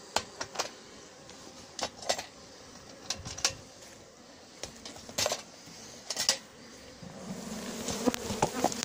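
Scattered knocks and clatter as a shop vacuum's plastic head is lifted off its tank and set down. About seven seconds in, the buzz of many agitated honeybees starts and rises steadily as they pour out of the opened tank.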